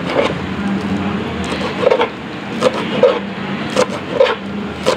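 Chef's knife chopping fresh coriander on a plastic cutting board: about seven knocks of the blade on the board, irregularly spaced, over a steady background hum.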